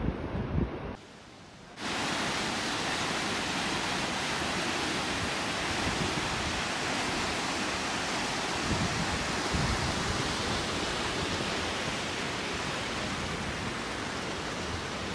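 A river in spate after heavy rain: fast, swollen floodwater rushing steadily. It comes in about two seconds in, after a second of wind buffeting the microphone and a brief drop in sound.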